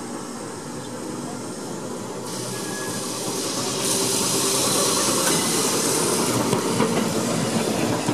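Double-deck electric tram no. 331 running past on street track, its rumble growing louder as it draws near. A loud hiss of air comes in from about four to six and a half seconds in.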